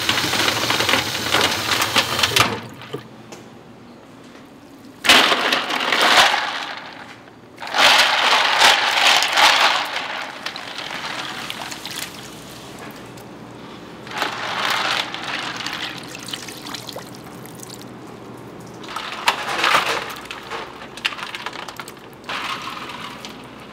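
Tap water running and splashing as raw beef intestines are rinsed, surging loudly six times for a second or two each, with quieter trickling and handling between.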